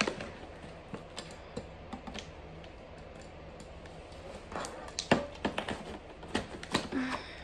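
Scattered light clicks and taps of fingers and long nails handling a cylindrical package, working at its lid and reaching inside. The taps come more often in the second half.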